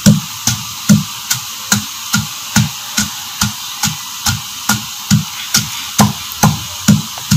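Wooden pestle pounding whole dried red chillies, garlic cloves and salt in a clay mortar: a steady run of dull thuds, about two to three strokes a second.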